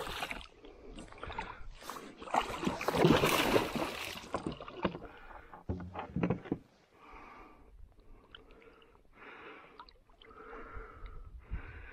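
Water splashing against the side of a plastic fishing kayak as a hooked pike thrashes alongside. It is loudest for about two seconds a couple of seconds in, then gives way to softer, intermittent sloshing and knocks.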